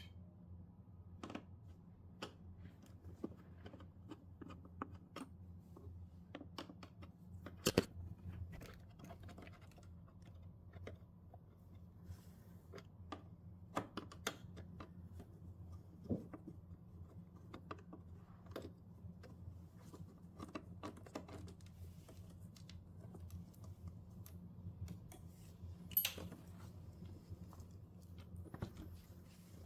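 Faint, scattered clicks and taps of screwdrivers working screws out of a television's plastic back casing, with a couple of sharper knocks. A steady low hum runs underneath.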